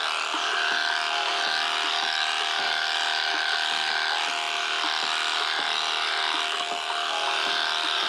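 Electric sheep-shearing handpiece running steadily, its comb and cutter clipping through thick, matted wool.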